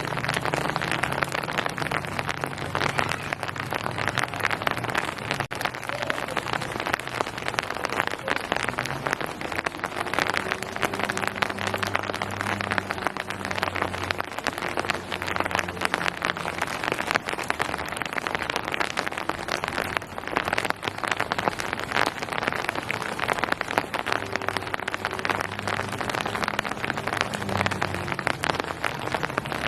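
Steady rain falling on hard surfaces: a dense, even patter of many drops.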